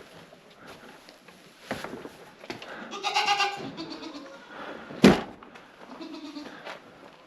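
A goat bleats once, a wavering call about three seconds in, followed by a sharp knock about two seconds later, with light rustling and shuffling between.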